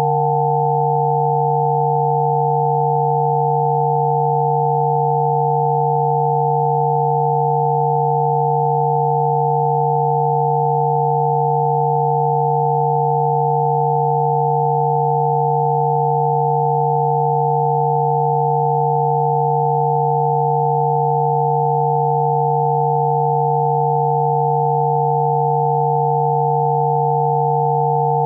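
Rife frequency tones: several steady electronic sine tones sounding together, one low and a few higher, held unchanged throughout.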